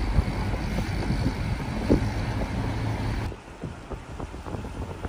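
Car driving along a road, heard from inside the cabin: a steady rumble of engine, tyres and wind that drops suddenly to a quieter rumble about three seconds in.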